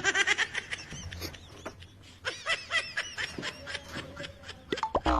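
Laughter: a run of short snickering pulses.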